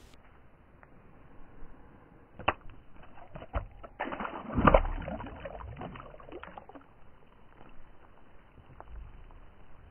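A small rainbow trout released by hand into the lake from a dock, splashing at the water's surface about four to five seconds in, after a couple of sharp knocks.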